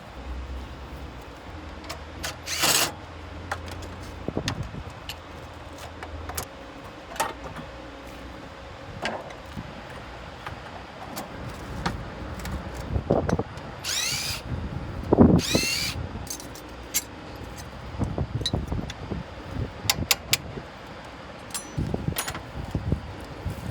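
Metal tools and parts clinking and knocking at irregular intervals during engine repair work. A low hum runs through the first few seconds, and two short squealing scrapes come just after the middle, the second the loudest.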